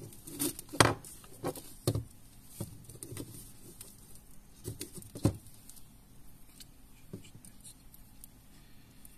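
Scattered small clicks and taps with light rustling from hands handling thread and the foam parts of a homemade mandula fishing lure. The loudest taps come about a second in and about five seconds in, and after that only one faint click is heard.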